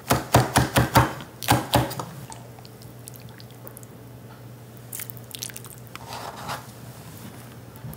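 Chef's knife chopping cilantro on a bamboo cutting board: a quick run of about ten chops over the first two seconds. Later come a couple of soft wet scooping sounds as beans are ladled from the slow cooker.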